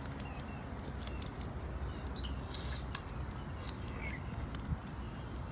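Steady low outdoor rumble with scattered light clicks and snips as cooked crab and lobster shells are handled with scissors. A few faint, short bird chirps come through.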